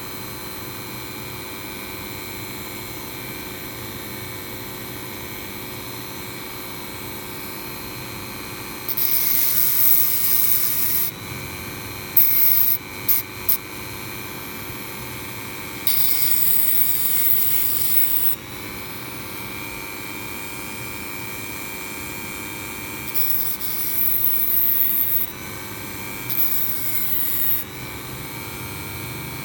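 Small rotary tool fitted with a thin metal cutting disc, running steadily with a whine. Several bursts of grinding cut in as steel safety-pin wire is pressed against the spinning disc: a couple of seconds each, plus three quick touches in a row.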